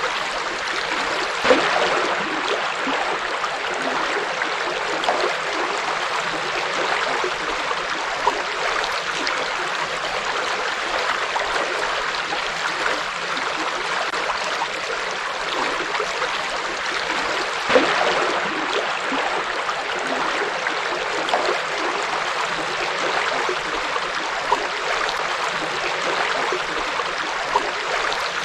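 Forest river flowing steadily over rocks, a constant rush of water with small splashes and gurgles, two slightly louder splashes about a second and a half in and again near eighteen seconds in.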